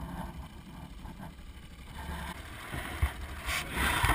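Steady low rumble of a small fishing boat on open water, with a single knock about three seconds in and a louder rushing hiss near the end.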